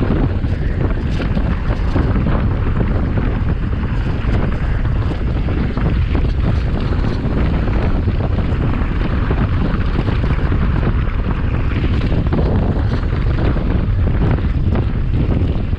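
Wind buffeting the microphone during a fast mountain-bike descent, a steady loud rush, with the tyres crunching over loose gravel and many small clicks and rattles from the bike on the rough track.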